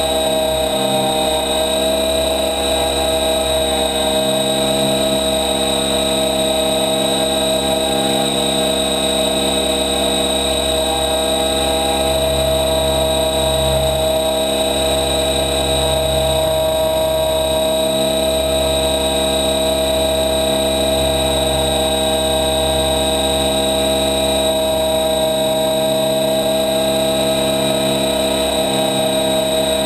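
Helicopter engine and rotor running steadily in flight: a constant whine over a low drone.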